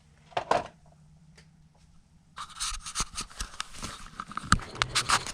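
Handling noise from the RC crawler's plastic Lexan body and chassis: a couple of light clicks, then a couple of seconds in a stretch of plastic scraping and rustling broken by sharp clicks and knocks.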